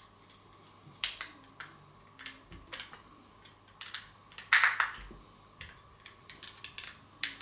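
Small screwdriver clicking against the plastic case and snap clips of a quartz pendulum clock movement as it is pried open: a dozen or so irregular sharp clicks, the loudest cluster a little past halfway.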